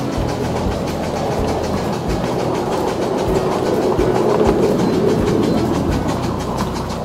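Miniature 10¼-inch gauge steam locomotive, a Bassett-Lowke GNR Atlantic, running with its train along the track, heard from on board. A little louder around the middle.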